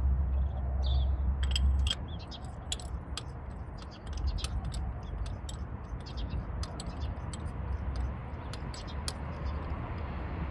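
Scattered light clicks and scrapes of hand tools working on the engine during spark plug and coil work, over a low hum that drops away about two seconds in.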